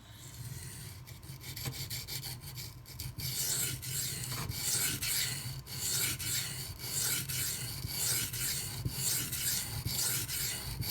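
A 154CM-steel knife blade (Emerson A100) stroked back and forth on a coarse 240-grit silicon carbide sharpening stone, a gritty scraping hiss. The strokes grind chip damage out of the edge. They start softly, then from about three seconds in come as repeated firmer strokes, one or two a second.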